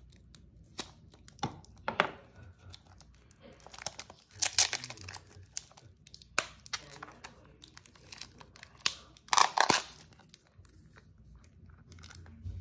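Thin clear plastic deli cup being handled and its taped snap-on lid worked off: scattered crinkles, clicks and tearing rustles, loudest about four seconds in and again near ten seconds.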